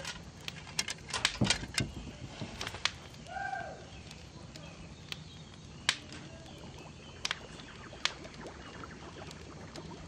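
Open wood fire crackling under a boiling pot: irregular sharp pops and snaps, thickest in the first three seconds and sparser after, over a low steady background. One short pitched call sounds about three seconds in.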